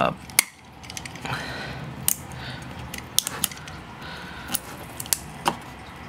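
Plastic pry tool scraping and clicking as it levers at a cover on a MacBook Pro A1708's logic board, with sharp irregular clicks every half second to a second; the cover does not come off easily.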